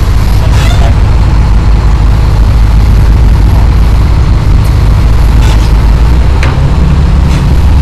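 Sport-fishing boat's engine running, a loud steady low rumble.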